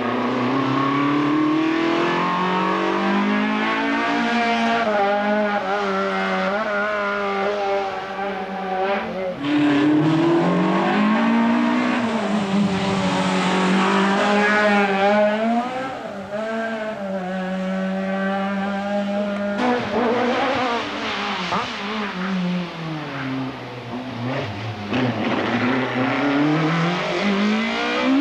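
Ford Puma rally car's engine revving hard on a climb, its pitch rising and dropping over and over with gear changes and lifting off for bends. The sound breaks off abruptly twice, about a third and two thirds of the way through, and picks up again at a new point in the car's run.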